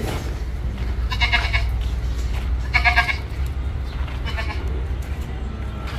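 A goat bleating three times in short calls, about a second in, near three seconds and more faintly just past four seconds, over a steady low rumble.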